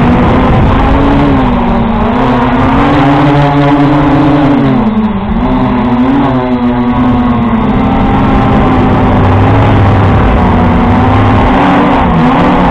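Small quadcopter drone's electric motors and propellers buzzing in flight, heard close up from its own onboard camera. The pitch rises and falls as the throttle changes, dipping about five seconds in and wavering again near the end.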